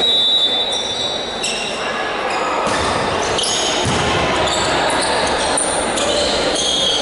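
Volleyball rally on a gym court: sneakers squeaking on the floor in short high chirps, with the dull knocks of the ball being played, echoing in a large hall.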